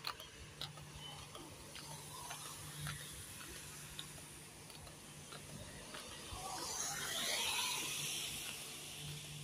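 Wet street at night: a low steady hum under scattered light clicks and taps, with a hiss that swells and fades from about six to nine seconds in.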